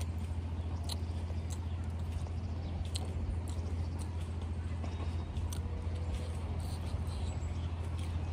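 Close-up mouth sounds of a person chewing a mouthful of rice, with scattered short wet clicks and lip smacks, over a steady low hum.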